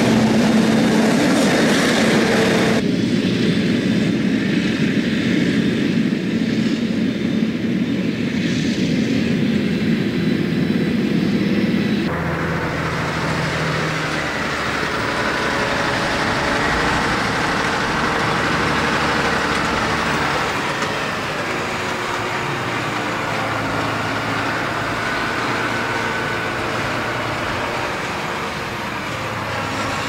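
Heavy diesel farm machinery running steadily: a John Deere 7R tractor hauling a silage trailer alongside a maize forage harvester, then driving across the field with two loaded trailers. The sound changes abruptly about three seconds in and again about twelve seconds in.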